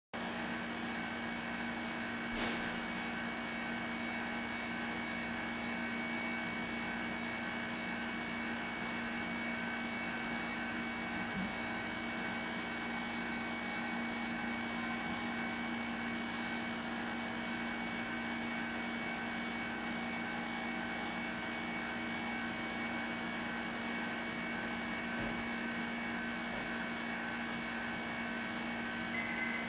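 Steady electrical hum with several held tones over a constant hiss, broken only by one faint click about two seconds in.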